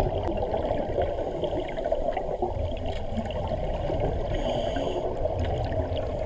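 Scuba regulators bubbling underwater as divers exhale, a dense muffled gurgle with most of its sound low down. A brief high hiss comes about four and a half seconds in as a diver draws a breath through the regulator.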